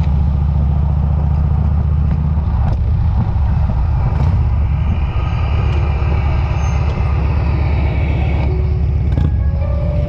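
Touring motorcycle's engine running with a steady low rumble at low road speed, with some wind noise.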